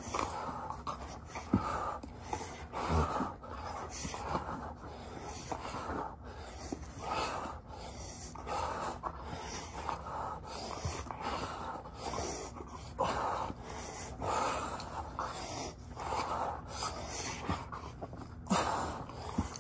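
Dog panting and snorting at close range: irregular breathy puffs about once a second, with a few faint clicks.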